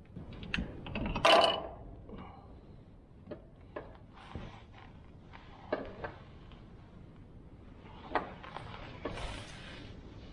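Scattered light clicks, knocks and rustling of hand work inside a truck's wheel well as a new oil filter is set into its housing and the filter cap is taken off it. The loudest rustle and scrape comes about a second in.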